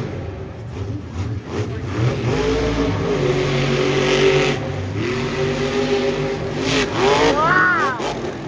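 Monster truck's supercharged V8 engine revving hard under changing throttle, with a sharp rev that rises and falls near the end.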